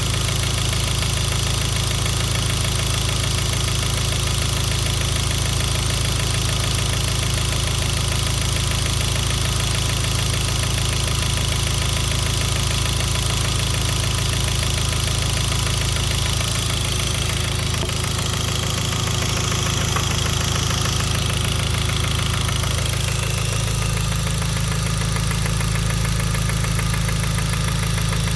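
Hyundai Genesis 2.0T's turbocharged 2.0-litre four-cylinder engine running with rod knock, the sign of a spun rod bearing after the oil pump failed to lubricate it. The engine note shifts partway through.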